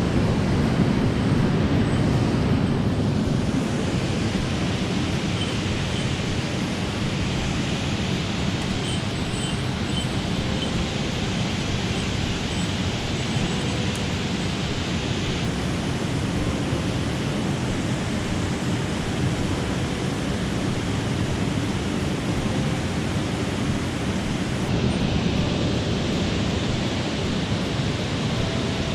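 Mountain stream water rushing, a steady wash of noise.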